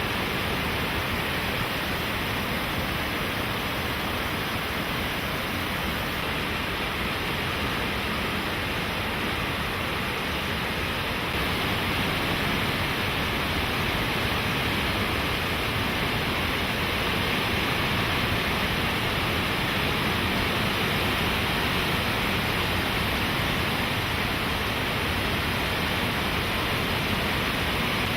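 Rushing river water after heavy typhoon rain: a steady, even rush of water, a little louder from about eleven seconds in.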